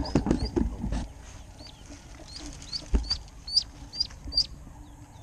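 Ducklings peeping: a run of short, high chirps repeating about two or three times a second, loudest in the second half. Rustling and footsteps through brush in the first second, and a single knock about three seconds in.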